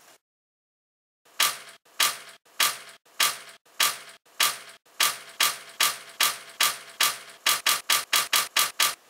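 Calendar flaps of a TWEMCO RC-12A flip clock snapping over one after another as the day, date and month leaves turn: a run of sharp plastic clacks starting about a second in, first about every half second, then quickening to about four a second near the end.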